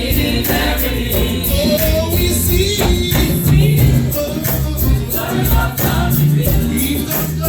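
Gospel choir singing with live band accompaniment: sung melody over a strong bass line, with a shaker or tambourine keeping a steady beat.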